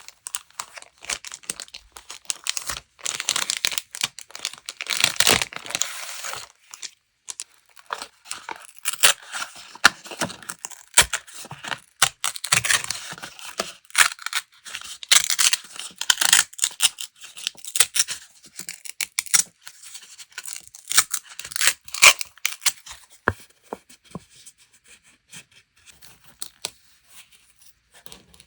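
Paper being torn by hand in a run of short, irregular rips, with crinkling as the sheets are handled; it thins to sparse rustles near the end.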